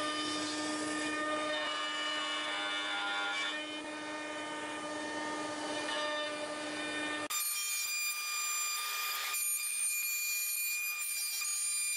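CNC router spindle whining at a steady pitch as the bit cuts wood. About seven seconds in, the sound cuts abruptly to a thinner, higher whine.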